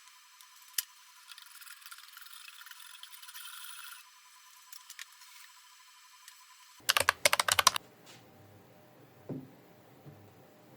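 Kitchen preparation sounds: light crackly scraping and clicking for a couple of seconds, then a quick run of sharp clicks about seven seconds in, and a single knock a couple of seconds later.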